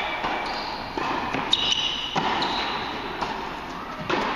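Tennis rally in an indoor hall: a few sharp hits of the ball on racket strings and bounces on the court, each echoing, with short high squeaks between them.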